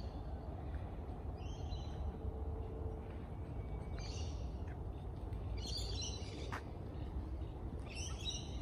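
Birds calling in short clusters of high chirps, about four times, over a steady low rumble.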